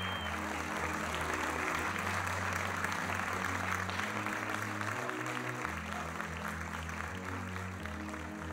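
A theatre audience applauding in a standing ovation, with dense, steady clapping over music of low sustained chords. The applause eases a little near the end.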